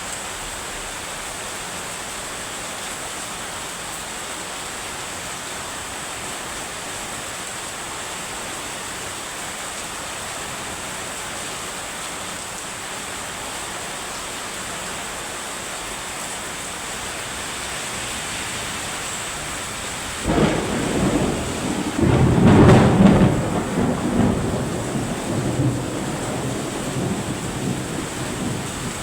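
Steady heavy rain, then about twenty seconds in a loud rolling rumble of thunder that builds for a couple of seconds and dies away over several more.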